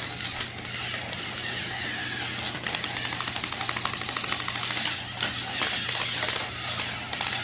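Battery-powered toy trains running on plastic track: a steady motor whir, with a fast regular clicking in the middle as the wheels rattle over the track.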